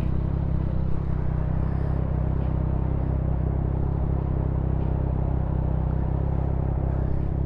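Motorcycle running at a steady cruise, a low even engine drone under wind and road noise.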